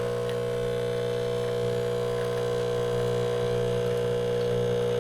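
Breville Barista Express espresso machine's vibratory pump humming steadily while pulling a double shot, the brew pressure in the normal range.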